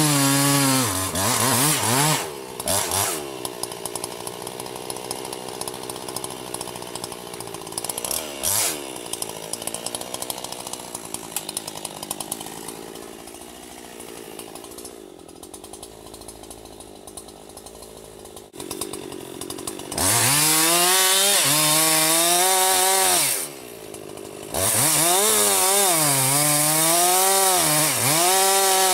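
Chainsaw running at full throttle in a cut, its engine pitch wavering up and down as the chain loads and frees. It drops to a much quieter level from about two seconds in, comes back to full throttle about twenty seconds in, and lets up briefly near twenty-four seconds.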